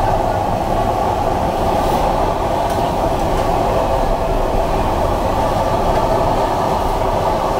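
Steady, loud roar of gas burners firing under a row of clay pots, with a couple of faint clinks of utensils against the pots about two and three seconds in.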